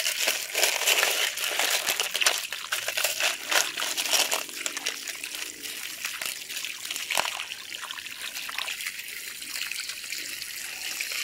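Garden hose water running and splashing over tumbled rocks and tumbling media in a plastic colander as they are rinsed of polish, with the stones clicking and clattering against each other as hands stir them, most often in the first half.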